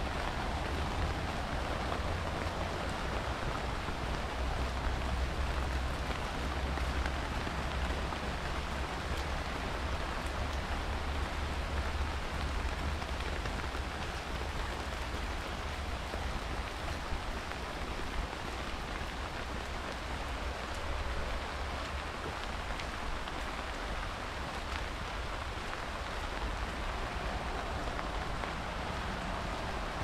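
Steady rain falling, with a low rumble underneath that eases after the first half.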